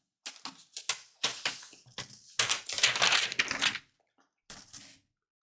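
Paper rustling and crackling in a run of bursts as the release backing is peeled off sticky stabilizer and the stabilizer is pressed down by hand onto a plastic embroidery frame. The noise stops for a moment, then comes back briefly near the end.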